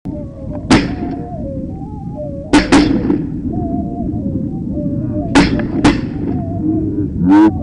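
Hunting shotgun firing five shots: one, a quick double about two seconds later, then another double around five and a half seconds in, over steady outdoor background noise. A loud pitched call comes near the end.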